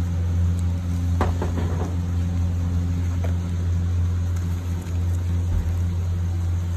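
A steady low machine hum that does not change, with a few short clicks between one and two seconds in.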